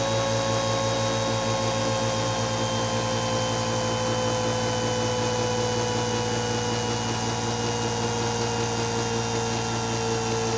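Ingersoll Rand dual-action air sander running free, its pitch falling slowly. Under it the VEVOR oil-free air compressor runs steadily. The compressor is not keeping up with the sander's air draw: its pressure falls to about 50 psi.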